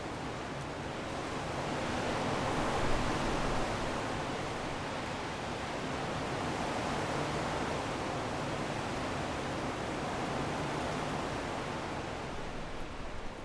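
Strong wind blowing in gusts, swelling to its loudest about three seconds in and then slowly easing off.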